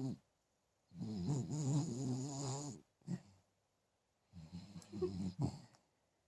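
A pet dog snoring in its sleep: a long snore of about two seconds, a brief one, then another long snore, with quiet breaths between.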